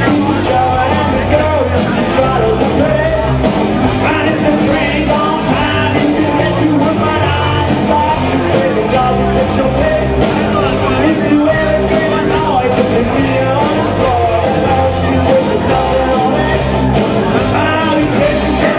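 Live rock band playing loudly, with a singer and a steady drum beat.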